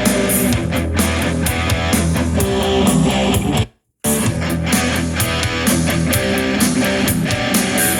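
Rock music with electric guitar played through a W-King D8 portable Bluetooth speaker. The music cuts out completely for a moment a little before the middle and then comes back.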